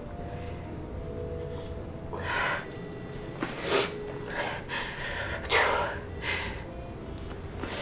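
A woman's sharp, shaky gasps and sobbing breaths, about six short ones from about two seconds in, the breathing of someone crying in distress.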